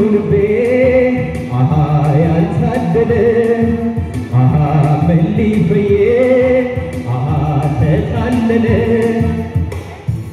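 A man singing live into a microphone, amplified through PA speakers, over a musical accompaniment. The sung melody wavers in pitch and comes in repeating phrases about every two and a half seconds.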